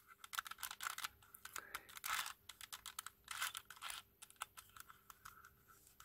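A 2x2 twisty puzzle carrying cast white resin knight pieces being turned by hand: irregular plastic clicks and short scrapes as the layers twist and the pieces knock together.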